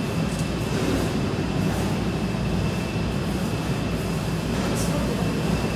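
A steady low rumble with a thin, steady high whine over it.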